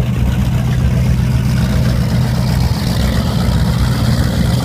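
28-foot Pantera powerboat's engine running steadily with a low, even drone.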